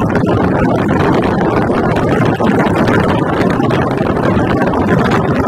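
Speedboat under way: its motor running steadily with a dense rushing noise.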